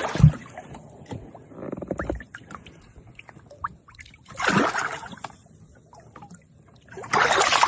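Water splashing and sloshing in four short bursts, with quieter lapping between them.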